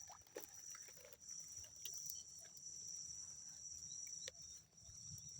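Insects chirring steadily in a high, even band, with a few faint scattered clicks and rustles.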